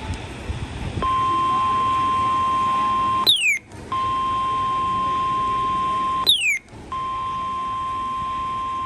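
NOAA Weather Radio warning alarm tone: a steady single-pitch tone starting about a second in, sounded before a broadcast alert. It is broken about every three seconds by a short dropout with a brief falling chirp.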